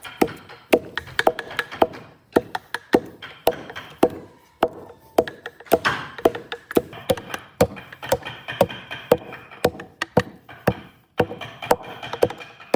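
Rapid, irregular sharp knocks and taps on wood, several a second, with a few short pauses.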